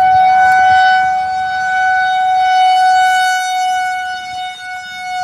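Rotating outdoor tornado siren sounding one steady, loud tone, its volume swelling and fading as the turning horn sweeps past.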